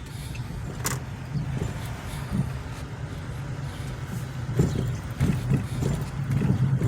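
Car driving, its engine and road noise a steady low drone from inside the cabin, with a sharp metallic ting about a second in and several low knocks later as the car goes over bumps. The ting is a loose muffler clamp rattling under the car on each bump.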